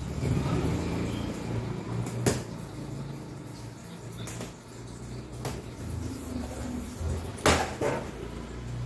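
A long cardboard mattress box being handled and opened by hand: rustling and scraping of cardboard, with a few sharp knocks, the loudest about seven and a half seconds in with a second one right after it.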